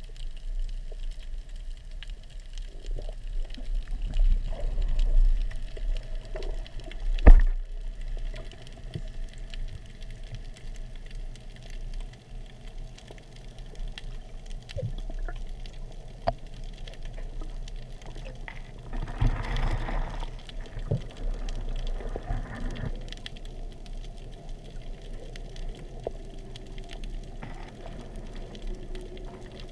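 Underwater ambience heard through a submerged camera: a steady low water rumble with scattered faint clicks, one sharp knock about seven seconds in, and a louder rushing patch about two-thirds of the way through.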